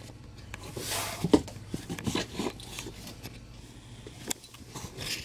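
Comic books and plastic bags being handled on a stack: light rustling with scattered soft taps and clicks, one sharper tap about a second and a half in.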